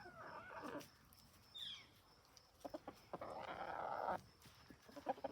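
Chickens clucking and calling, with a short high squawk about a second and a half in. A second-long burst of noise comes a little past the middle.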